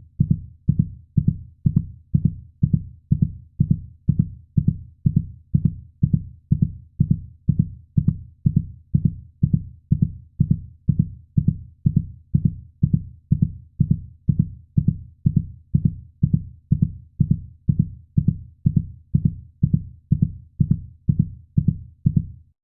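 Heartbeat sound effect: a steady, even rhythm of low thumps, about two a second.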